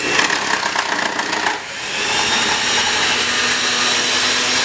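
Electric hand mixer running, beating cupcake batter: a steady motor whir with a high whine, dipping briefly about one and a half seconds in before running on.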